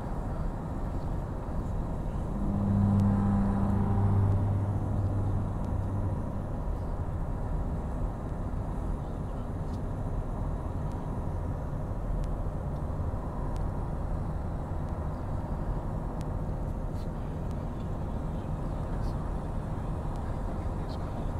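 Steady low vehicle rumble heard from inside a car's cabin. About two and a half seconds in, a low hum rises over it for about three seconds, then fades back into the rumble.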